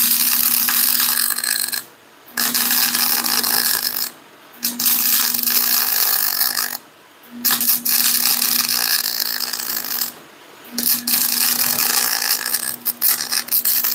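MIG welding arc crackling as a bead is laid along a crack in an Eaton truck rear axle housing, with the welder's steady hum under it. It goes in five runs of two to three seconds, and the arc stops for about half a second between them.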